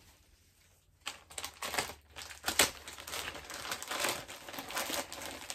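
Plastic bags crinkling and rustling as they are handled, with a sharper crackle about two and a half seconds in, after a near-quiet first second.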